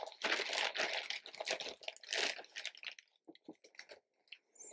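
Plastic bag crinkling and damp sphagnum moss rustling as it is pulled out by hand and dropped into plastic tubs. A dense crackle for the first two to three seconds, then a few scattered crackles.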